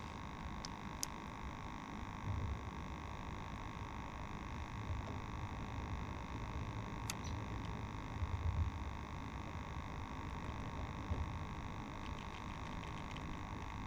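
Steady low rumble and faint hum, with a few light clicks near the start and about seven seconds in.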